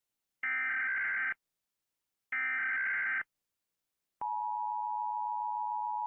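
Emergency alert attention tones: two one-second electronic beeps about two seconds apart, then a lower long steady tone starting about four seconds in.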